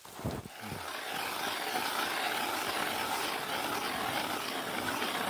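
Hand-cranked ice auger drilling through lake ice: a steady scraping grind that sets in about a second in and runs on evenly.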